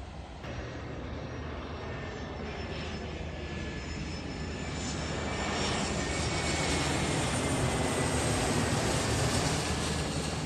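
Aircraft engine noise of a plane flying past, a steady rush that swells over the second half, with a thin whine slowly falling in pitch.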